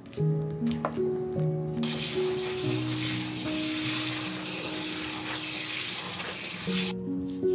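Kitchen tap running hard onto fresh seaweed in a stainless-steel colander as it is rinsed by hand: a steady rush of water for about five seconds that stops suddenly near the end. Before it, a few short clicks of a pepper mill being twisted, with background music throughout.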